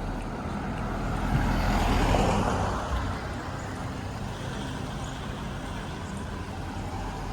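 Road traffic noise under a steady low rumble, with a vehicle passing that swells and fades about one to three seconds in.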